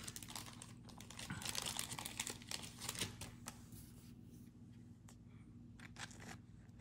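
Plastic crinkling and rustling with small clicks as a trading card is handled and slid into a plastic card holder. It is busiest in the first three seconds or so, then fainter.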